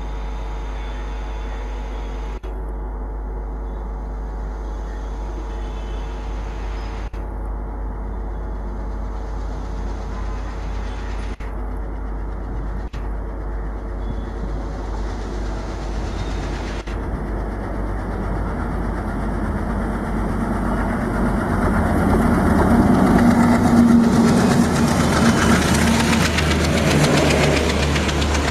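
ALCO WDM-3A diesel-electric locomotive, with its 16-cylinder ALCO 251 engine, working under load as it approaches with a steady low hum. The sound grows louder over the last several seconds as the locomotive passes close by, followed by the rush of the coaches rolling past.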